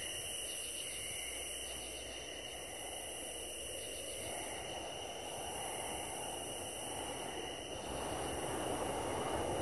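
Evening outdoor ambience of insects trilling steadily in high, even tones. A low rushing noise grows louder near the end.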